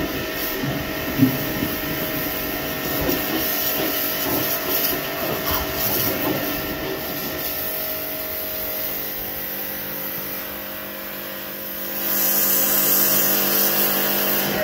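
A 2500 W, 150-bar electric pressure washer running, its motor and pump humming steadily under a hiss from the water jet. About twelve seconds in the hiss gets louder.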